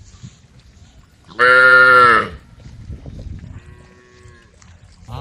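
Cows mooing: one loud moo lasting nearly a second, about a second and a half in, then a fainter moo around four seconds, and another loud moo beginning at the very end.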